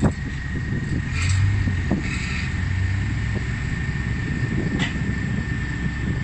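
Komatsu hydraulic excavator's diesel engine running under hydraulic load as the arm swings back from the dump truck. The engine pulls harder for a couple of seconds about a second in, with a thin steady whine over the low rumble. There is a sharp knock right at the start and another about five seconds in.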